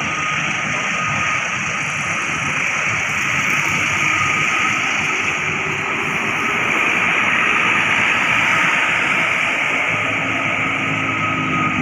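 Steady road traffic noise, with tyres hissing on a wet road. About ten seconds in, a vehicle's engine hum comes in under the hiss.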